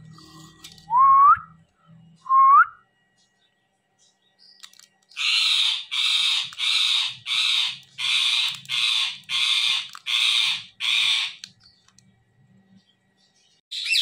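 Two short rising whistles, then a rose-ringed (Indian ringneck) parakeet giving a run of about a dozen harsh, screeching calls, roughly two a second, with one more short screech at the very end.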